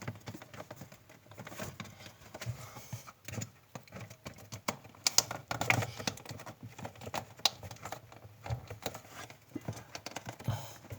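Irregular light clicks, taps and rustling of hands handling refrigerator parts, working to seat a heater into its channel inside the fridge.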